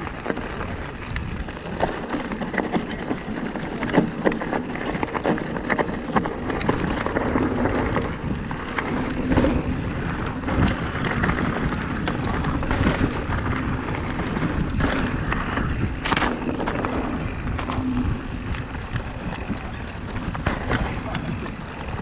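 Mountain bike rolling over rough trail: steady tyre and wheel noise with frequent knocks and rattles as it hits bumps.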